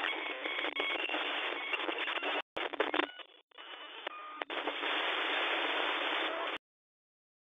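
Static sound effect like a badly tuned radio or TV: a dense, narrow-band hiss with crackles, two brief dropouts and a few faint short beeps. It cuts off suddenly about two-thirds of the way through, and silence follows.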